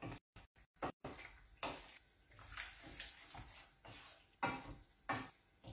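Wooden spoon stirring pasta in sauce in a frying pan: faint, wet scraping strokes, several in a row with short gaps between them.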